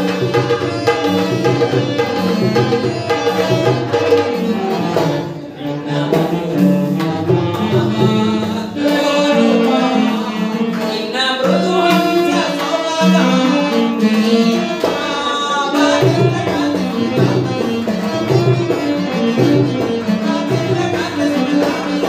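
Kannada devotional song with singing over drums and melodic instrumental accompaniment, playing continuously.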